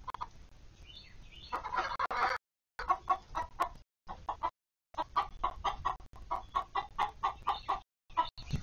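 Hens clucking in a steady run of short clucks, about five a second, with a denser burst of clucking a little before and brief gaps where the audio cuts out completely.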